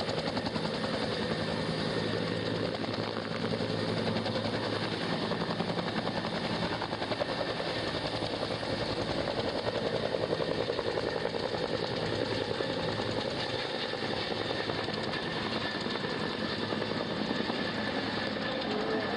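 Firefighting helicopter's rotor beating in a steady, rapid chop, with a low steady engine and turbine tone underneath.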